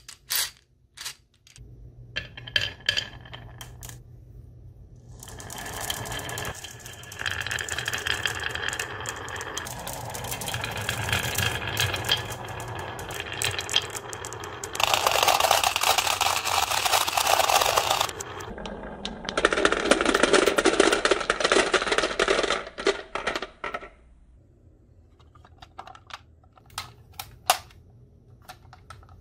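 Glass marbles clinking together, then a crowd of them rolling and clattering down a wavy wooden marble-run slope, clicking against each other and the wood for about twenty seconds. Near the end a few scattered clicks as marbles settle in a plastic toy truck's bin.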